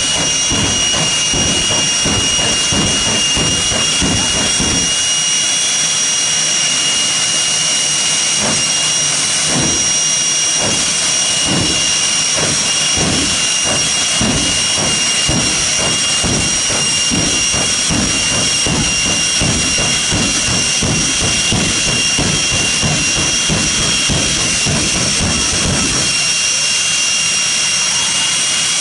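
Jet engines of two jet-powered train dragsters running at the starting line: a steady, loud roar with a high whine, and an uneven low rumble pulsing through it.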